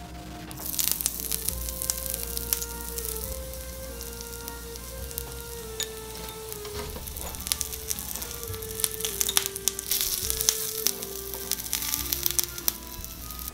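Breaded salmon piece frying in hot oil in a miniature cast iron skillet: sizzling with sharp crackles, starting about half a second in as it goes into the pan. Soft background music plays underneath.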